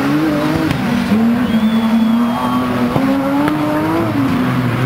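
Autocross racing cars' engines running at high revs as the cars slide through a dirt-track corner. The engine note holds steady, then climbs for about a second and drops away shortly before the end.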